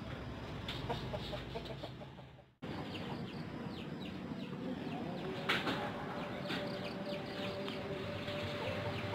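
Chickens clucking in the background, with short scattered calls. The sound drops out briefly about two and a half seconds in, and a faint steady hum comes in about halfway through.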